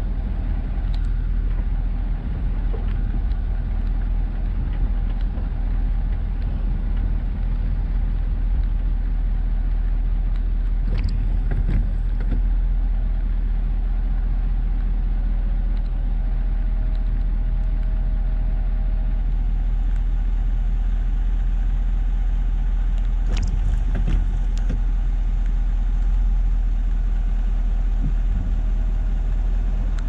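Plow truck driving: a steady low rumble of engine and road noise, with a few short sharp knocks near the middle and again about three-quarters of the way through.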